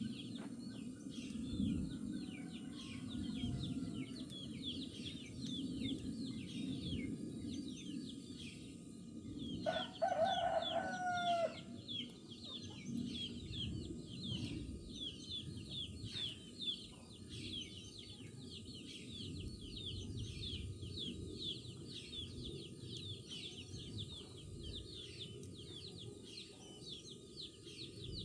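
A rooster crows once about ten seconds in, one call of about two seconds that drops at the end. Around it, many small birds chirp without pause over a low clucking of hens.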